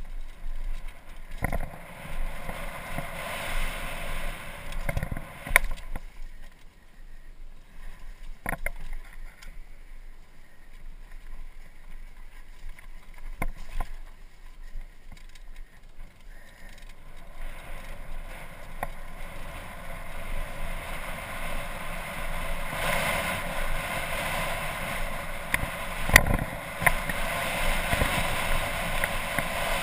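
Helmet-camera ride on a downhill mountain bike over a rough dirt trail: rushing wind on the microphone and tyre noise, with sharp knocks from the bike hitting bumps. The rushing gets louder in the second half, and the sharpest knock comes near the end.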